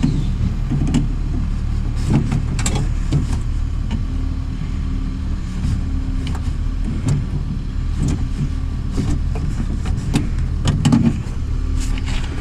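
Scattered light clicks and taps of a needle-nose plier working the latch cable clips inside a car door, over a steady low hum.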